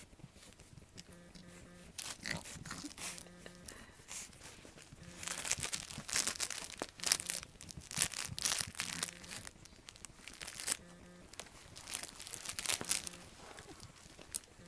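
Irregular rustling and crinkling noises in quick, uneven bursts, louder in the middle of the stretch and again near the end.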